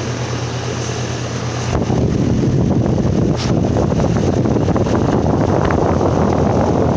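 2024 Ruud Achiever RA14AZ 4-ton central air conditioner condenser running in cool mode, a steady hum. About two seconds in, a louder, even rush of air blowing across the microphone joins it and keeps on.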